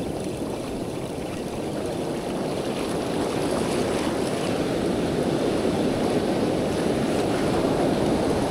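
Ocean surf washing up the beach, a steady rushing that slowly swells louder, with wind buffeting the microphone.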